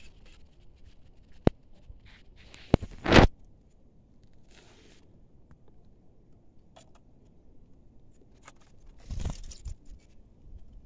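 A few sharp clicks and short scraping rustles at a wire bird cage. The loudest is a brief scrape about three seconds in, with another rustle near the end.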